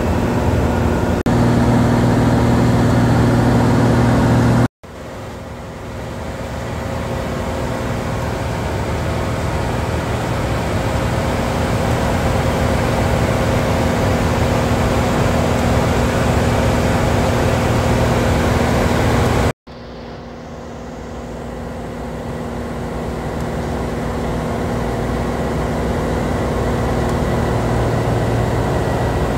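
Cessna's piston engine and propeller heard from inside the cabin, a loud, steady drone in flight. It cuts out abruptly twice, about five seconds in and again about twenty seconds in, each time coming back quieter and swelling up over a few seconds.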